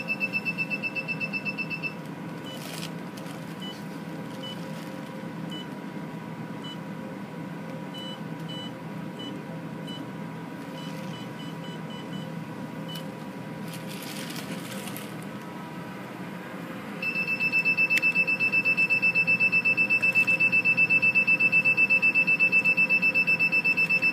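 Laser hair-removal machine beeping rapidly and evenly as the handpiece fires its pulses, stopping about two seconds in. Single short beeps follow at uneven intervals as its touchscreen is tapped, then from about seventeen seconds the rapid firing beeps start again, louder. A steady machine hum runs underneath.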